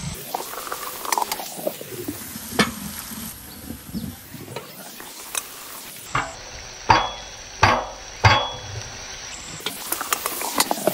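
A long wooden paddle stirring onions and tomatoes frying in oil in a large aluminium pot, scraping and sizzling, with sharp knocks of wood on the pot, three loudest about seven to eight and a half seconds in.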